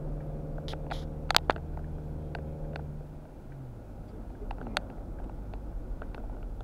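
Car engine and road rumble heard from inside the cabin. The engine hums on a steady note, which drops away about three seconds in, and a few sharp clicks and knocks come through, the loudest a quick double knock about a second and a half in.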